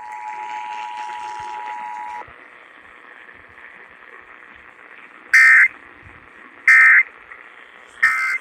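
Emergency Alert System attention signal, a steady two-tone alert over radio static, cuts off about two seconds in. Static hiss follows, then three short, loud warbling data bursts about a second and a half apart: the EAS end-of-message code, marking the end of the alert.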